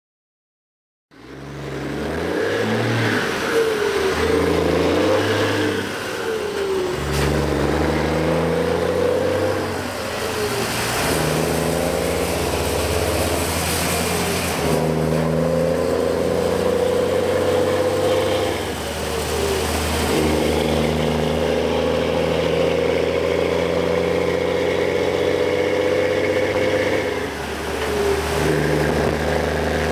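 DAF XF 480 truck's diesel engine running through an open, straight-through exhaust, starting about a second in. Its note shifts in pitch in steps, with short dips every few seconds as the revs change.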